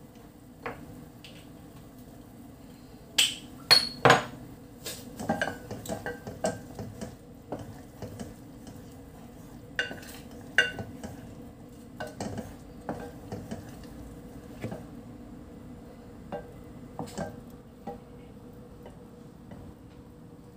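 Wooden spoon stirring in a stainless steel saucepan, knocking and scraping against the pan's sides. A quick run of sharp knocks about three to four seconds in is the loudest, followed by lighter scattered taps over the next dozen seconds, with a steady low hum underneath.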